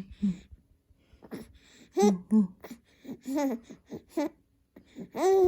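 Two-month-old baby cooing: a string of short, high-pitched vocal sounds that rise and fall in pitch, ending with a longer arching coo near the end.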